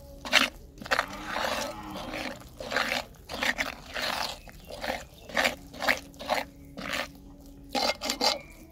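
Spoon beating thick, wet gram-flour (besan) pakora batter in a clay bowl: squelching, slapping strokes about two a second.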